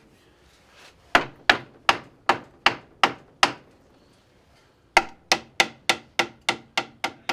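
Hammer striking wood, about three blows a second: a run of seven, a pause of about a second and a half, then a second, slightly faster run of about nine.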